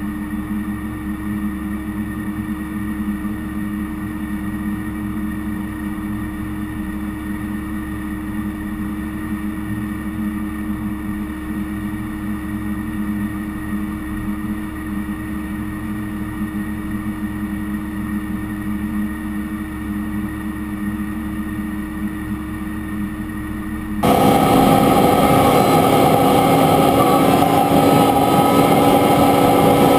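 Case IH Magnum 315 tractor's diesel engine running steadily as the tractor drives, heard from up on the cab roof. About 24 seconds in, the sound switches abruptly to a much louder, closer engine and drivetrain sound from down beside the front wheel.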